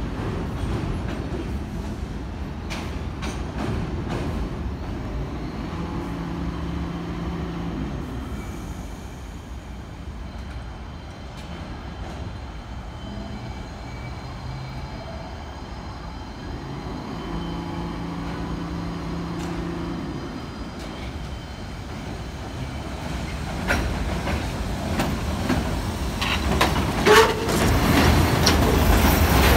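New York City Subway D train of R68 cars pulling away from the terminal and coming closer: a steady low rumble, with a hum that comes and goes twice, growing louder toward the end as the cars pass close by, wheels clicking over rail joints and switches with a brief squeal.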